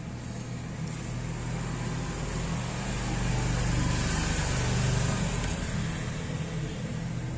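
A passing road vehicle: a broad rumble that swells to its loudest about four to five seconds in and then fades, over a steady low hum.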